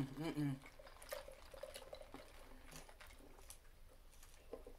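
A short hummed 'mm' at the start, then a person sipping soda from a paper cup: faint sips, small liquid sounds and mouth clicks.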